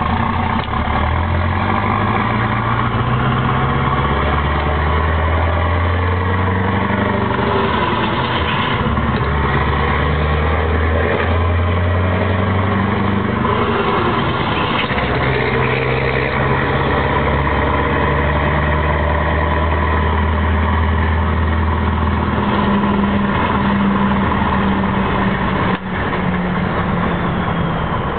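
Scania 164 480's V8 diesel engine, heard from inside the cab while the truck is driven. Its pitch climbs as it pulls, drops at a gear change, then holds steady at cruising revs, with a brief sharp dip near the end.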